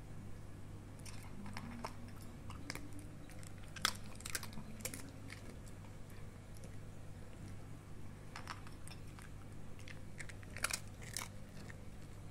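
Small dog crunching mouthfuls of dry kibble: irregular sharp crunches in bursts, over a steady low hum.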